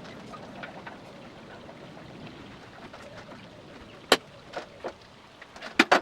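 Workshop handling noises: a steady faint hiss with small ticks, a single sharp click about four seconds in, then several clicks and knocks near the end.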